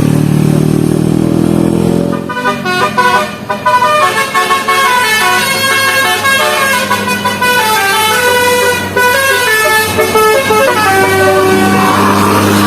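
Telolet multi-tone musical bus horn playing a quick tune of short notes, stepping up and down in pitch. A low steady drone comes before the tune and returns near the end.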